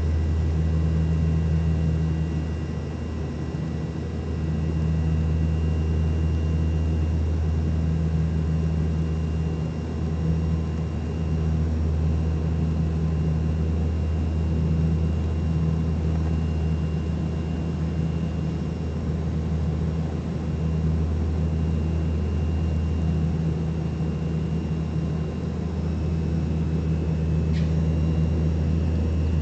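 American Eagle turboprop airliner's engines and propellers droning steadily, heavy and low with faint steady whines above, the level dipping slightly a few times. A short click near the end.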